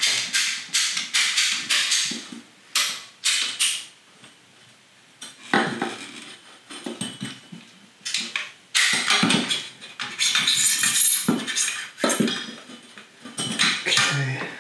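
Hand tubing cutter being turned around a metal tub drain pipe, its wheel scoring the pipe to cut it to length: repeated metallic scraping and clicking in spurts, with a short pause about four seconds in.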